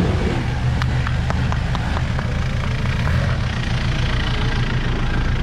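A four-wheel-drive vehicle's engine running steadily at low revs, with scattered sharp clicks and knocks over the rumble in the first two seconds or so.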